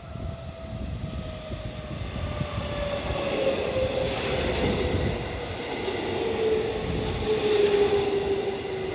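JR Central 313 series electric train pulling into a station and slowing, its motor whine falling steadily in pitch over the rumble of wheels on the rails, growing louder as the cars come alongside.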